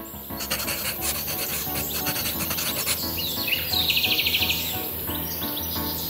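A pointed tool scratching through a layer of oil pastel on paper, making many short rasping strokes, over soft background music. A brief fast high trill comes about four seconds in.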